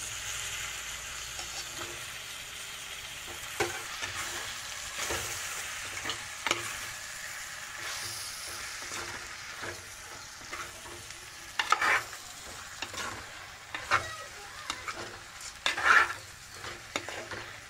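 Raw chicken pieces sizzling in hot oil and masala in a clay pot as a metal spoon stirs them: a steady frying hiss, with the spoon scraping and knocking against the pot now and then, the knocks loudest in the later part.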